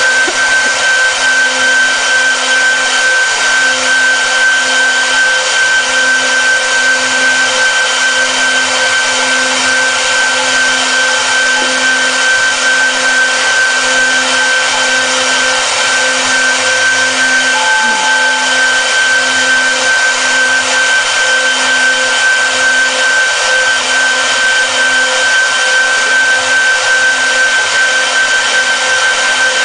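Multi-head CNC router's spindles carving wood: a steady high-pitched whine over a constant hiss of the bits cutting, running unchanged throughout.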